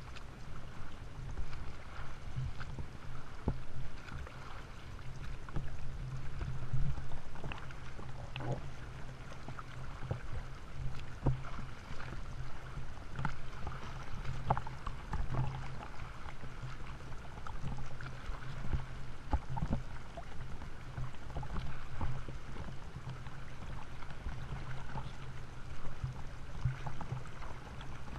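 Sea water sloshing and splashing around a camera at the surface, with irregular splashes from swimming strokes close by. A steady low hum runs underneath.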